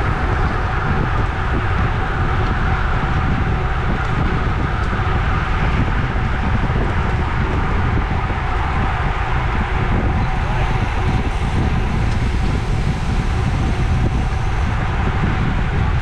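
Steady rush of wind buffeting the microphone, with road-bike tyre and road noise, while riding in a pack at about 25 to 29 mph.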